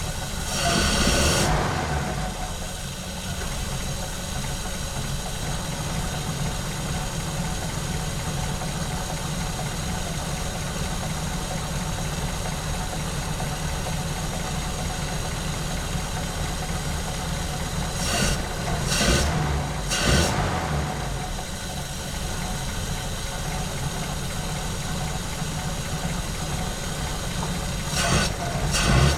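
1950 Pontiac Silver Streak engine idling steadily on its freshly rebuilt carburetor while the fuel-air mixture is being set. A few short, louder bursts break in: about a second in, twice around two-thirds of the way through, and again near the end.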